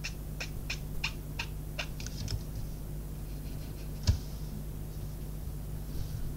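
A water brush stroking wet colour on card, heard as a run of short scratchy ticks, about three a second, over the first two seconds or so. A single louder knock comes about four seconds in, over a steady low hum.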